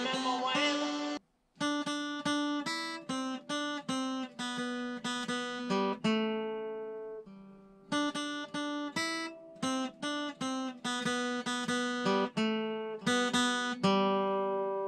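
Acoustic guitar played in a steady rhythm of short picked chords, many cut off quickly, with a longer chord left ringing about six seconds in and again near the end. The sound drops out briefly about a second in.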